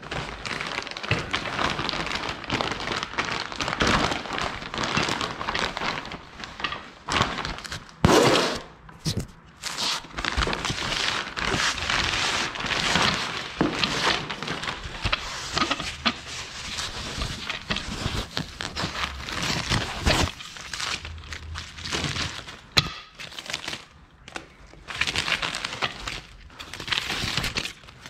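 Plastic bags and foam wrap crinkling and rustling in irregular bursts as a part is unwrapped from its packaging, with one loud, sharp crackle about eight seconds in.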